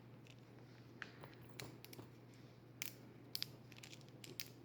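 Faint, scattered clicks and crinkles of plastic fidget toys and their packaging being handled, about eight short ticks spread across a few seconds.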